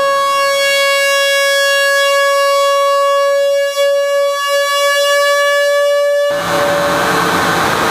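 Homemade light-controlled noise/drone circuit on a breadboard sounding a steady, buzzy drone tone with many overtones, which switches abruptly about six seconds in to a harsh, hissing wall of noise.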